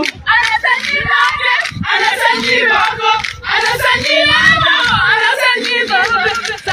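A crowd of young Oromo men and women singing together, many voices overlapping, with scattered low thumps.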